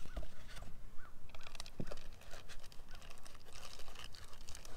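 Plastic bag crinkling and rubbing against a foam box insert as a packed part is pulled out, with small handling clicks. In the first second or so a bird calls in quick short chirps, about four a second.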